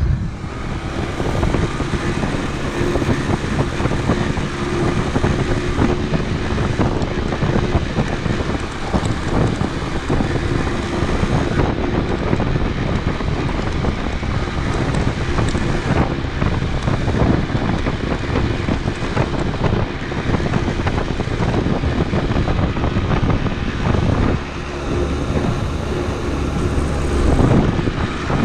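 Honda CD125T parallel-twin motorcycle running steadily under way, heavily overlaid by wind rumble on the microphone, easing briefly about 24 seconds in.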